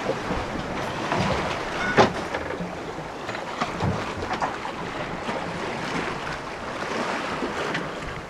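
Rough sea rushing and splashing along a sailboat's hull, with wind, and a sharp hit about two seconds in.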